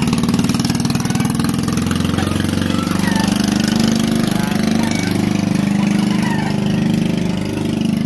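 An engine running steadily at an even, idle-like speed.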